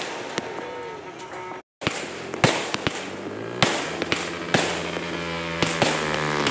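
Aerial fireworks going off: repeated sharp bangs and crackling from bursting shells, with the sound cutting out completely for a moment about a second and a half in. In the second half, a steady droning hum comes in under the bangs and rises in pitch near the end.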